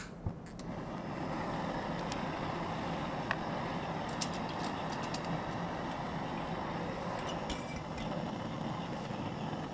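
Small portable gas canister stove lit with a click, then its burner running with a steady hiss. A few light clicks and knocks of handling, the last as an aluminium pot is set on it.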